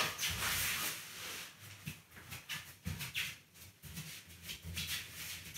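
Soft irregular thumps and shuffles of a person moving quickly about on a wooden floor.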